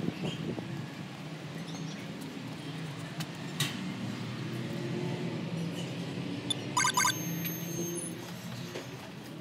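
A Cyfral apartment-block door intercom giving a quick run of electronic beeps about seven seconds in, as the steel entrance door is unlocked, over a steady low hum. A single sharp click comes a few seconds before the beeps.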